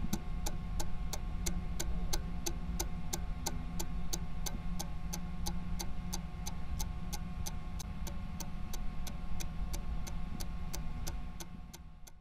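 Clock-like ticking, about three ticks a second, over a low droning hum with a faint steady tone, a timer-style sound effect laid over the footage; it fades out near the end.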